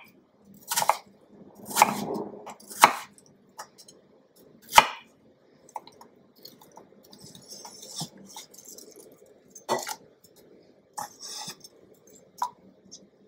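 Kitchen knife dicing peeled apple on a bamboo cutting board: a scattered series of sharp knocks as the blade strikes the board, at uneven intervals.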